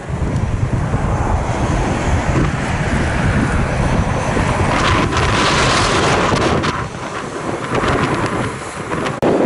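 VDL Futura touring coach driving past, its diesel engine and tyres heard through wind buffeting the microphone.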